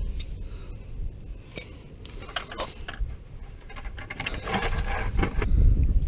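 Scattered metal clinks of a wrench on a tractor's hydraulic drain plug, then a longer stretch of scraping about four seconds in as a plastic bucket is slid into place beneath the plug.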